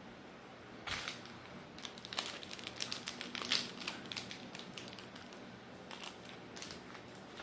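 Sticky slime being handled and pressed in the hands, giving a run of small crackling clicks and crinkles from about a second in until about five seconds, with a few more clicks near the end.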